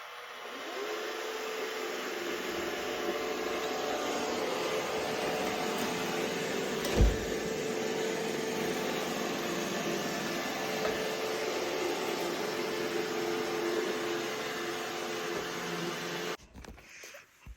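An iRobot Roomba i3+ robot vacuum spins up and runs with a steady whirring hum and a held tone. A single sharp thump comes about seven seconds in, and the motor cuts off suddenly near the end.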